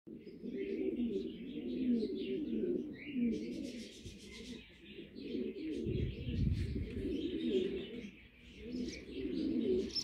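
Several birds calling at once: a steady low cooing, like doves, under many short high chirps from small birds. A dull low rumble comes about six seconds in.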